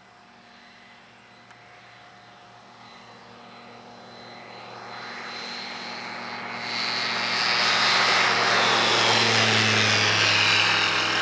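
InnovAviation FX1 light sport aircraft on its takeoff run: a single propeller engine at takeoff power, a steady drone that grows louder over several seconds as the plane comes down the runway, loudest as it lifts off close by.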